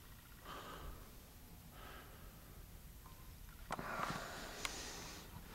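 Faint breathing close to the microphone during a pause in speech, followed about three and a half seconds in by a couple of sharp clicks and a short rustle of handheld camera handling as the shot moves.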